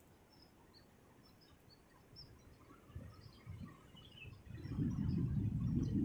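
Faint, scattered bird chirps over quiet outdoor ambience, then about four and a half seconds in a loud, irregular low rumble sets in.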